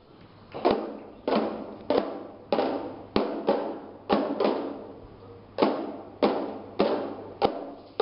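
Boomwhackers, coloured plastic tubes, struck together by a group of children in a steady beat of about one hit every 0.6 seconds. Each hit dies away quickly, and there is a longer pause about five seconds in.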